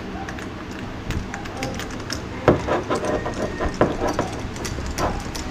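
Scattered sharp clicks and knocks from a broken doorknob lockset being handled and turned, starting about two and a half seconds in.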